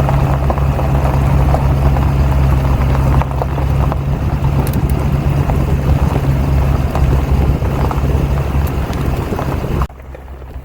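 Vehicle running steadily on a gravel road, heard from inside the cab: a low engine and road drone with a constant crackle of tyres on gravel. The sound drops away abruptly near the end, leaving wind noise.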